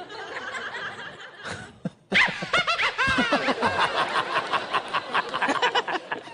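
Audience laughter that breaks out suddenly about two seconds in and keeps going, many voices laughing together.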